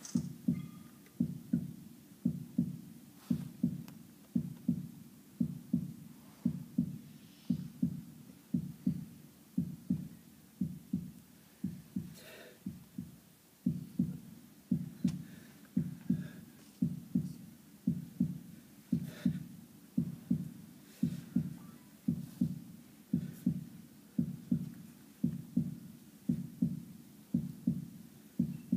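Heartbeat sound effect: steady lub-dub double thumps, a little more than one beat a second, evenly paced.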